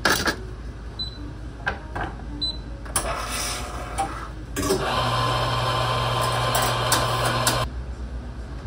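Electric espresso grinder running for about two and a half seconds, a steady motor hum under the grinding, cutting off abruptly. Before it come clinks and knocks of the portafilter and cafe equipment being handled.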